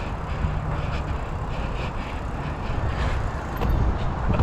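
Steady rush of wind buffeting the microphone, mixed with the rolling noise of the SE Bikes Monster Quad's fat 29-inch tyres during a long wheelie.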